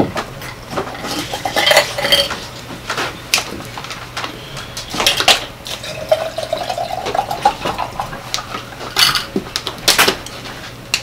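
Clicks, clinks and rustles of tableware and paper being handled, then water poured from a plastic bottle into a glass about six seconds in, its pitch rising as the glass fills. More sharp clicks follow near the end as the bottle is handled.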